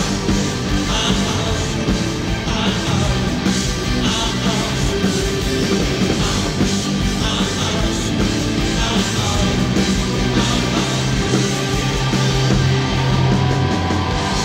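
A live rock band playing loudly.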